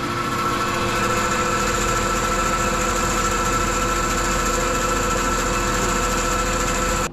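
Laguna 14-inch bandsaw running free with no wood in the blade, a steady motor hum and whine that fills out and gets louder over the first second or two as it comes up to speed. This is a short unloaded run to check that the blade is tracking properly.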